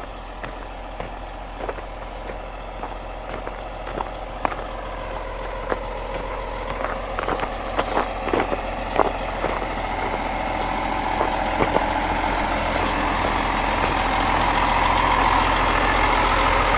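Heavy truck's diesel engine running, with scattered short clicks and knocks; the engine and surrounding noise grow steadily louder through the second half.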